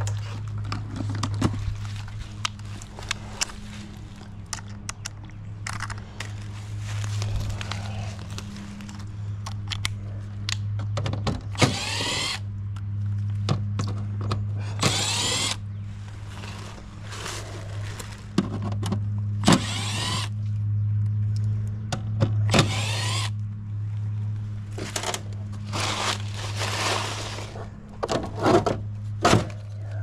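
Steady low hum from the running heat pump package unit, whose condenser fan is not turning. Over it come several short whining bursts from a cordless driver backing out the top grille's screws, with clicks and handling noise.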